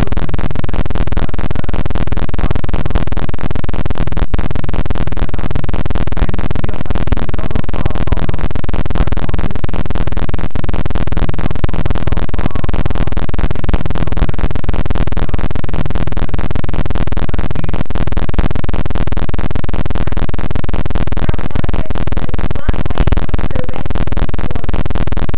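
Loud, unbroken harsh electronic buzz of distorted, garbled audio, with no intelligible speech in it.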